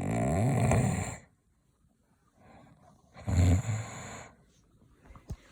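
A man snoring loudly: two long snores about three seconds apart, the first lasting over a second, the second about a second.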